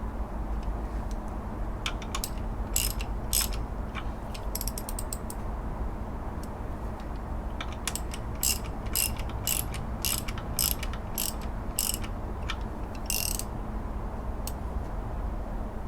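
Ratchet wrench clicking in short, irregular runs as it turns the air conditioning belt's tension bolt, adjusting the belt tension.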